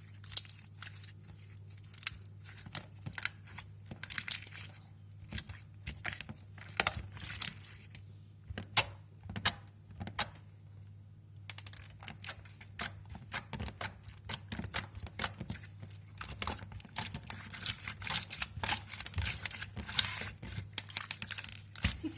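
Slime being squeezed and poked by hand, giving an irregular string of sharp clicks, pops and crackles with a short pause about halfway through. A steady low hum sits underneath.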